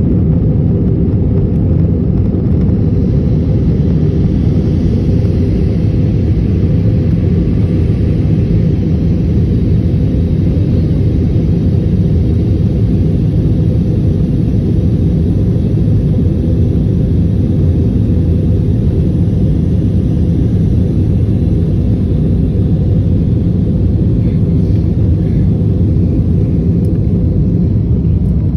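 Steady low rumble of jet engines and rushing air, heard inside the passenger cabin of an airliner in flight.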